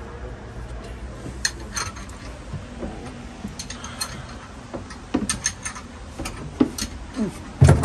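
Metal tools and car parts clinking and knocking under a car during an oil change: scattered sharp clinks, a quicker run of them about five seconds in, and a heavy knock near the end that is the loudest sound.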